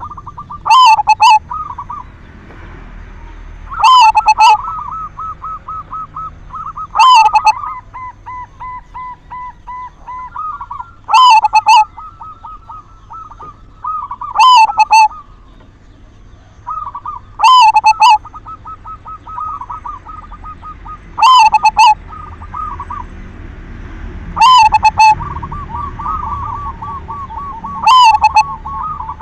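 Zebra dove (perkutut) singing: loud, clipped paired coos about every three and a half seconds, with softer rapid rolling, stuttering coos between them.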